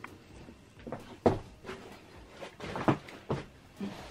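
A few irregularly spaced soft knocks and thuds, with faint rustling, as someone moves up to a futon-style sofa bed and takes hold of its backrest.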